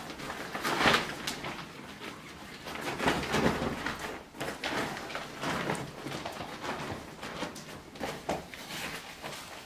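Rustling and crinkling of a fabric tote bag and plastic carrier bags being handled, opened and folded, in irregular bursts.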